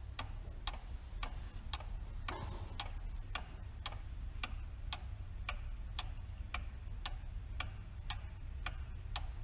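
Atkins Clock Company wall clock ticking steadily, about two ticks a second, over a faint low hum.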